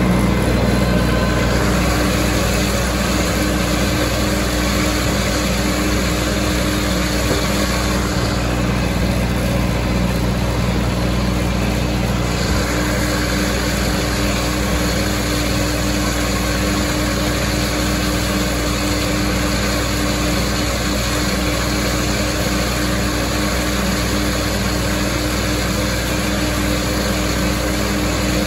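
Massey Ferguson 165 tractor engine running steadily while mowing hay, a constant drone with an even hiss over it.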